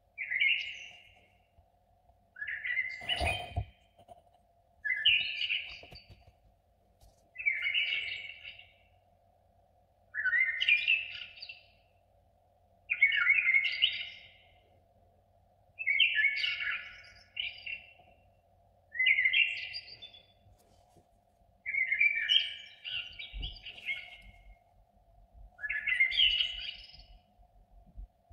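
A songbird singing short warbled phrases, each about a second long, repeated about every two and a half seconds, over a faint steady hum. A single knock sounds about three seconds in.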